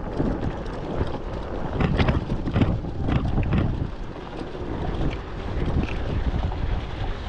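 Wind buffeting the microphone in an uneven rumble, with irregular sloshes of river water around a wading angler.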